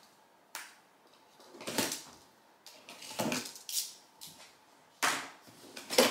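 A new stick vacuum's cardboard box and packing being opened and handled: a string of separate rustles and knocks with short pauses between, about half a dozen, the loudest near the end.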